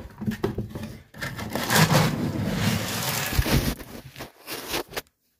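Plastic scoop digging into dry dog kibble in a plastic storage bin: a rattling rush of pellets lasting a couple of seconds, followed by a few scattered knocks.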